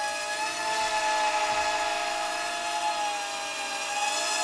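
Small toy drone built from Lego-type bricks flying: its motors and propellers make a steady high whine that wavers slightly in pitch as it holds its height.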